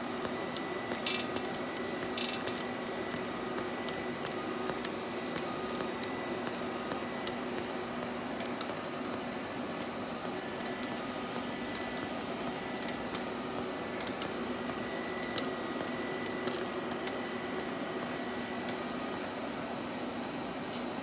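Automatic TIG welding machine welding a stainless steel tube-to-tube joint: a steady hiss and hum with a thin high tone, broken by scattered sharp clicks.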